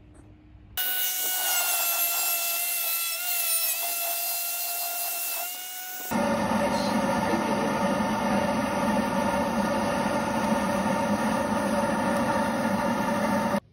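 Angle grinder running steadily with a high, slightly wavering whine that cuts off about six seconds in, followed at once by a second steady, lower-pitched run that stops abruptly near the end.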